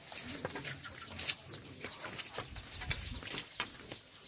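A small bird chirping a quick run of short, high, falling chirps, over the scattered steps of someone walking.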